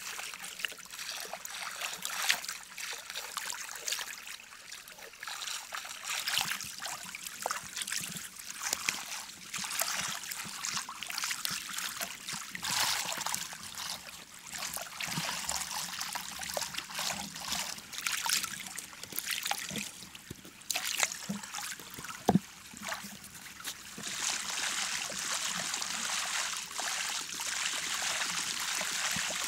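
Water trickling and splashing around a person moving and working waist-deep in a flowing river, with many small knocks and splashes. A single sharp knock about two-thirds of the way through is the loudest sound, and the water turns into a steadier hiss in the last few seconds.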